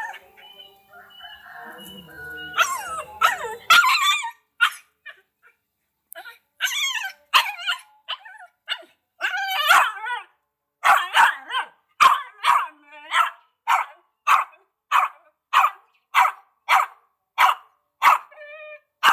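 Small dog barking repeatedly: irregular yappy barks at first, then from about halfway on a steady run of short barks, about two a second.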